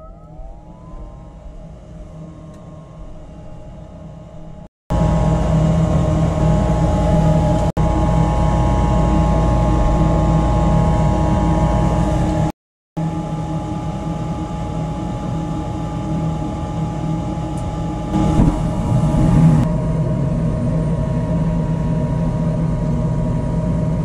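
Goodman gas furnace's draft inducer motor spinning up with a rising whine that settles into a steady hum. About five seconds in, the sound jumps to the furnace running loudly: a steady machine whine over a low rushing noise, with a brief dropout near the middle.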